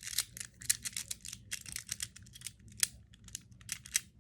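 A magnetic fidget toy clicking rapidly and irregularly as its pieces are snapped and fiddled in the hands.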